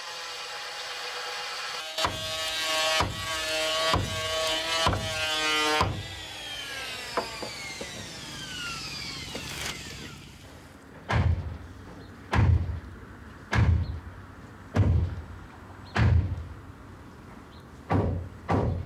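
Music of ringing struck tones and a falling sweep, then, in the second half, a hammer striking a wooden boat hull in steady heavy blows about once a second.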